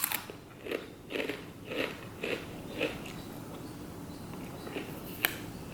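A person chewing food close to the microphone: a run of short, regular chomps about two a second, fading out after about three seconds, then a single sharp click near the end.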